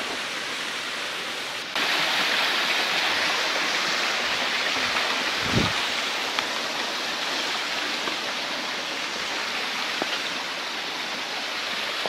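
Waterfall's rushing water: a steady hiss that gets louder about two seconds in. A single dull thump comes near the middle.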